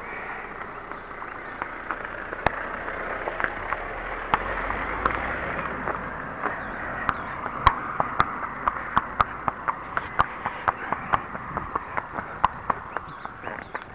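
A small car passes close by at low speed, its engine and tyre noise swelling to a peak about five seconds in and then fading. A horse's hooves then clop on tarmac at a walk, about three hoofbeats a second.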